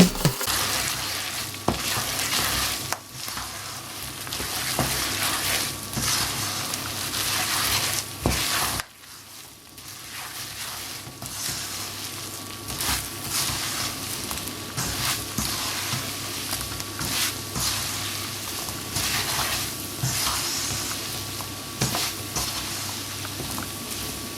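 Almonds being stirred in a pan of cooking sugar syrup: a steady sizzle with the scraping and clicking of the spoon and nuts against the pan. The sound drops away sharply about nine seconds in, then the sizzling and stirring pick up again.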